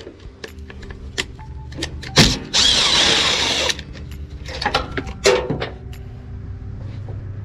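A power tool runs in one burst of about a second, a little over two and a half seconds in, loosening the overhead valve cover bolts on a small four-stroke engine. Around it come scattered clicks and clanks of hand tools and metal parts being handled.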